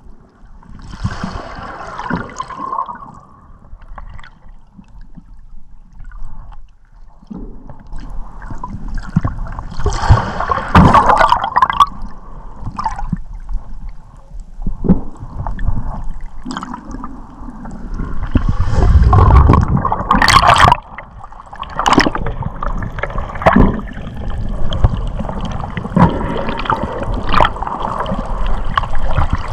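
Water gurgling and sloshing around an underwater camera near the surface, swelling and easing irregularly, with a few sharp clicks or knocks.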